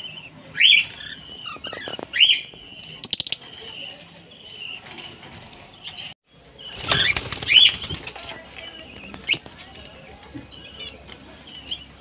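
Caged budgerigars and cockatiels chirping, with several short, sharp calls and a quick flutter of wings about three seconds in.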